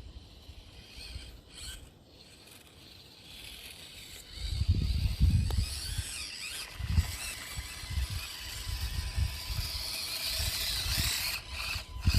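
Small electric motor and geared drivetrain of an Axial SCX24 micro RC crawler whining as it crawls. The whine starts about four seconds in and its pitch rises and falls with the throttle, over irregular low rumbling bumps.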